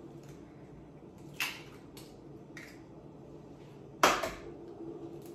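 An egg knocked against the rim of a mixing bowl to crack it: a light tap about a second and a half in, and a sharper, louder knock about four seconds in.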